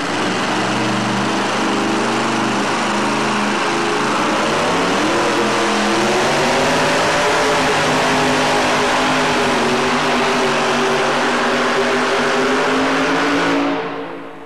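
Supercharged pulling truck's engine running hard as it drags a weight-transfer sled, a loud steady note whose pitch wavers a few seconds in, then dropping away near the end.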